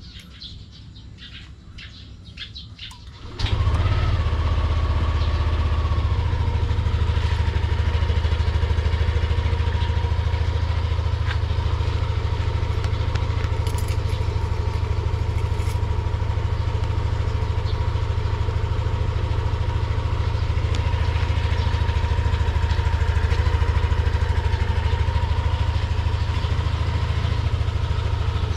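Yamaha Aerox 155 scooter's 155cc liquid-cooled, fuel-injected single-cylinder engine starting about three and a half seconds in, catching at once and settling into a steady idle.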